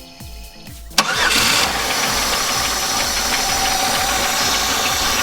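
Background music for about a second, then the 1999 Buick Century's 3.1-litre V6 starts with a sharp click and catches, running steadily and loudly with its two vacuum leaks just repaired.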